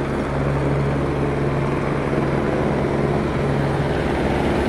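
Police helicopter overhead, its rotor and engine giving a loud, steady drone with a strong low hum.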